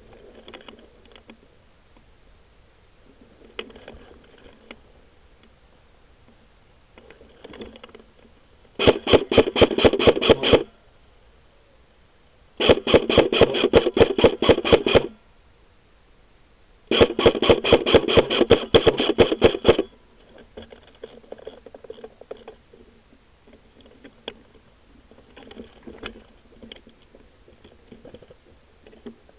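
Airsoft electric gun firing three full-auto bursts of about two to three seconds each, at about ten shots a second, with the gearbox cycling on each shot. Faint rustling between the bursts.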